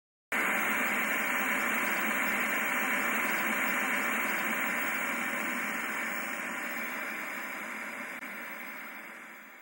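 Analogue TV static: a steady hiss of white noise that starts abruptly and slowly fades out over the last few seconds.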